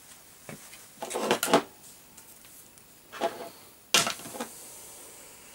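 Hands picking up and handling the camcorder's bundled power cables and adapter on a hard metal surface: a few short bursts of rattling and rustling, with a sharp knock about four seconds in followed by a brief clatter.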